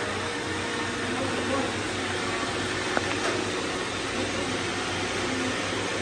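Several robot vacuums, among them an iRobot Roomba, running together on a tile floor: a steady whir of motors and suction with a low hum. A single sharp click about three seconds in.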